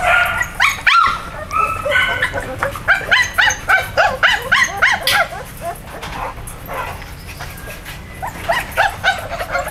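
Dogs yipping and whimpering: a quick run of short, high cries, about three or four a second, through the middle, then a few more near the end.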